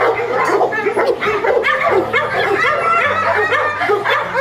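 Many dogs yipping and barking at once: a dense run of short, overlapping yelps.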